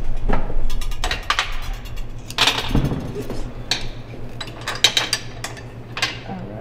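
Steel draw tongs and other metal hand tools clinking and clattering as they are picked up and handled: a string of irregular sharp clinks and short rattles.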